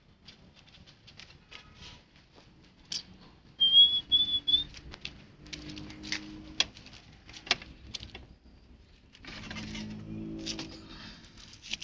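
Fantail pigeons cooing in two low spells, with scattered light clicks and pattering. A short, high, wavering whistle-like chirp about four seconds in is the loudest sound.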